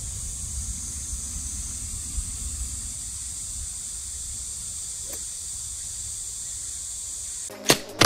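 Outdoor ambience: a steady high-pitched hiss over a low, even rumble. About seven and a half seconds in, a sharp whoosh and hit from an outro sound effect cut in loudly.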